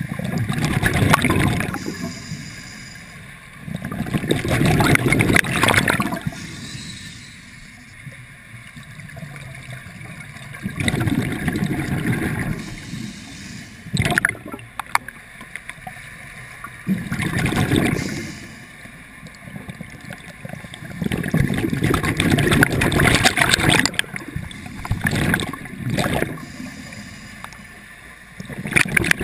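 A scuba diver breathing through a regulator underwater: a bubbling rush of exhaled bubbles every few seconds, each lasting one to three seconds, with quieter gaps between.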